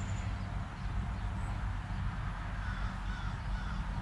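A steady low mechanical hum in the background, with a few faint bird calls, mostly in the second half.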